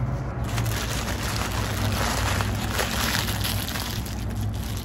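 Paper taco wrapper crinkling and rustling as it is peeled back and the taco is handled. It starts about half a second in and is loudest in the middle.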